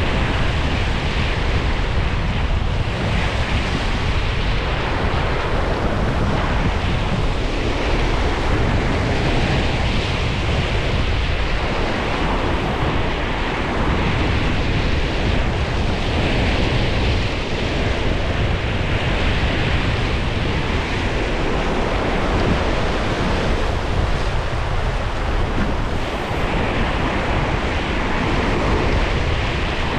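Strong steady wind buffeting the microphone, mixed with the wash of waves on the water.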